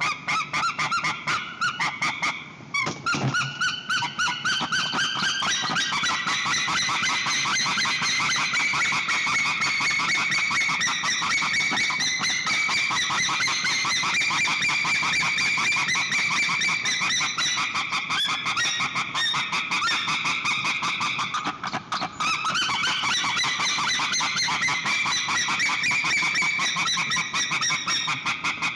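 White-tailed eagle calling: a long, rapid series of pitched calls, several notes a second, broken off briefly near the start and again about three-quarters of the way through.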